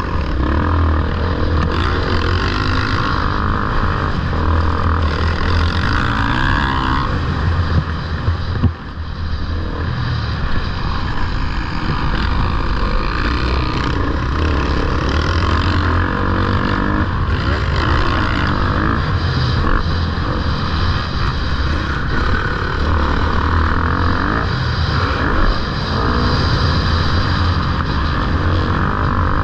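Motocross motorcycle engines running, a continuous engine noise with a brief dip in level about nine seconds in.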